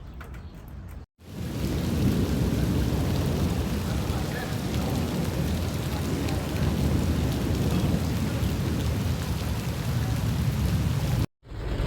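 Heavy rain pouring, with a loud low rumble under the hiss throughout. It starts abruptly about a second in and cuts off near the end.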